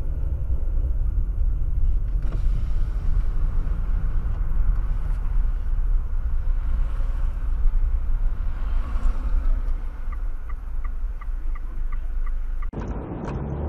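Steady low engine and road rumble heard inside a car driving in city traffic. Near the end comes a quick, even ticking, about three ticks a second, and then the sound cuts abruptly to a different recording.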